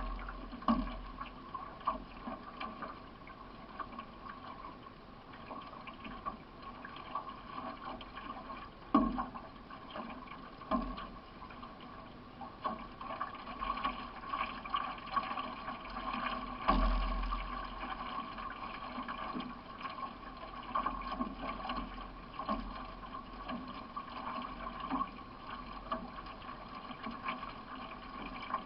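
Paddle strokes of a solo C1 racing canoe pulling through the water, with water running along the hull. Uneven splashing, with a few sharper, louder strokes.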